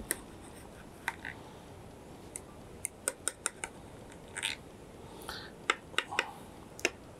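A knife scraping and clicking against the sides and bottom of a glass baking dish while loosening slices of baked eggplant parmigiana: a scatter of short, irregular clicks with a few brief scrapes.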